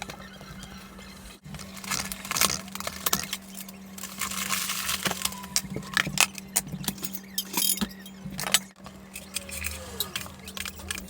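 Pugs eating: dense, irregular clicking and clinking of food and bowl as they feed, over a steady low hum.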